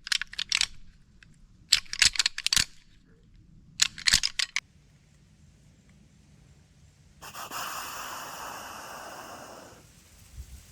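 Deer rattling antlers clashed and ground together in three short bouts of clacking, then a long hissing snort-wheeze of about two and a half seconds, the rut buck's challenge call.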